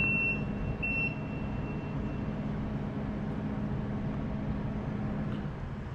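A vehicle's engine running steadily, with two high electronic beeps at the start, the second longer and fading out. The engine hum drops slightly near the end.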